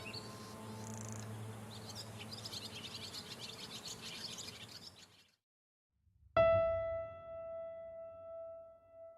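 Calm ambient music with a sustained drone and birds chirping over it, fading out about five seconds in. After a second of silence, a single soft keyboard note is struck and rings out slowly.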